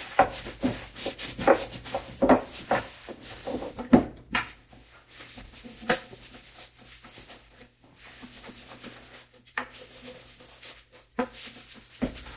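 Rough deglosser wipe scrubbed hard over a finished wooden tray, a scratchy rubbing in quick strokes about two a second. After about four seconds the rubbing turns fainter and more scattered as the tray is lifted and its edge and underside are wiped.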